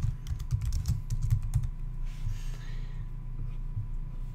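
Typing on a computer keyboard: a quick run of keystrokes for about a second and a half, then a few scattered clicks.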